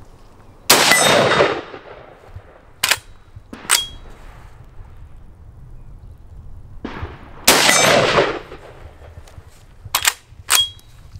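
Schmeisser SP15 straight-pull .223 rifle fired twice, about six and a half seconds apart, each shot a sharp crack with a long echoing tail. After each shot come two short metallic clacks, the second with a brief ring, as the bolt is worked back and forward by hand to chamber the next round.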